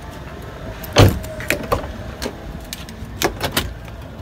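A car door being unlatched and opened from inside: a sharp thump about a second in, then several lighter clicks and knocks.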